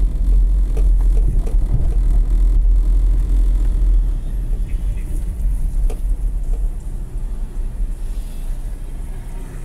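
Low rumble of a car's engine and tyres heard from inside the cabin while driving, getting quieter about four seconds in as the car slows behind the truck ahead.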